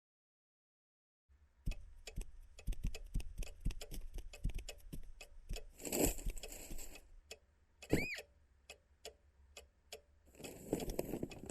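Cartoon sound effects: a run of light, irregular ticks and taps, two short rustling stretches, and a brief whistle that rises and falls about eight seconds in.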